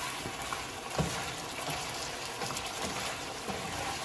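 Chicken pieces sizzling and bubbling in a pan with a splash of water added, the water cooking off as the chicken is fried. A light knock sounds about a second in.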